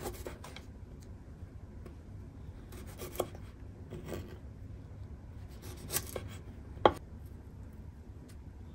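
A kitchen knife slicing through the woody scaly bases of tara-no-me (Japanese angelica tree) shoots and tapping down on a wooden cutting board, about five separate crisp cuts with the sharpest just before the end.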